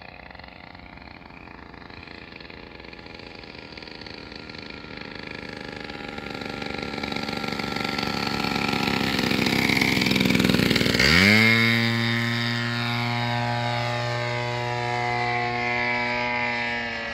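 Gasoline two-stroke engine of a radio-controlled scale Pilatus model plane running in flight. It grows louder as the plane closes in, then about eleven seconds in its note drops sharply as the plane passes, settling into a lower, steady buzz.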